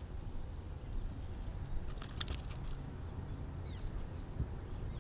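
Metal clinking and clicking of a spinnerbait's blades and hook as a hooked fish is swung aboard and handled, with a cluster of sharp clicks about two seconds in, over a low steady rumble.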